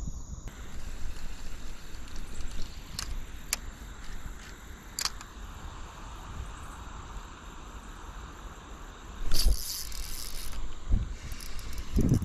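Handling noise from a spinning rod and reel while a lure is cast and worked: sharp clicks about three and five seconds in and a short rasping burst about nine seconds in. Under it runs a low wind rumble on the microphone.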